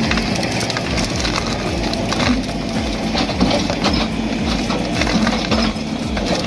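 A heavy machine running with a steady, fast rhythmic clatter of about four knocks a second, with scattered metallic clicks over it.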